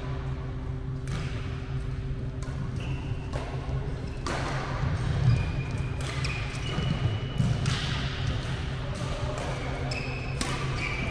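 Badminton rally: sharp racket-on-shuttlecock hits about once a second, with court shoes squeaking on the floor, over a steady low hum.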